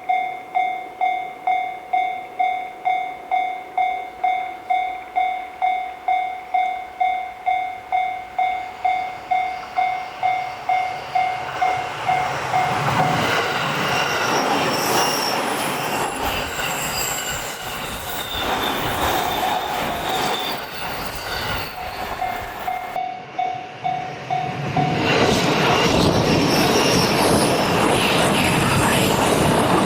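Japanese level-crossing warning bell ringing a rapid ding-ding at a little over two strikes a second. About twelve seconds in, a JR Narita Line train passes over the crossing with the rumble and rattle of wheels on rail, and the bell is still heard through a lull. The train noise swells louder again near the end.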